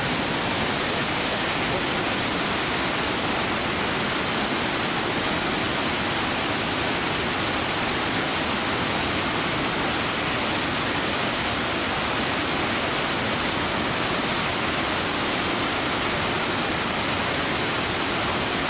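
Victoria Falls, the Zambezi River's water plunging into the gorge, rushing: a loud, steady, even hiss of falling water that never changes.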